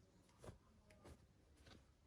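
Near silence with three faint light clicks, roughly every half second, from small miniature-toy packaging being handled.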